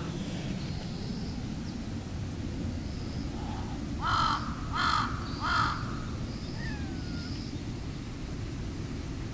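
A crow cawing three times in quick succession, less than a second apart, near the middle, over a steady low rumble.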